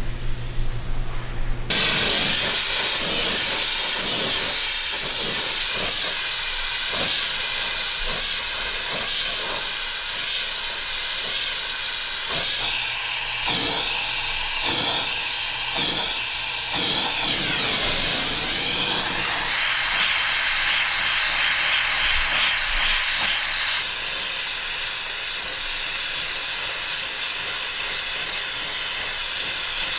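Loud steady hiss of a gas torch flame heating a steel sword blade, and the rushing of burning oil flaring around a hot blade held in a tank. The hiss changes character a couple of times but never stops.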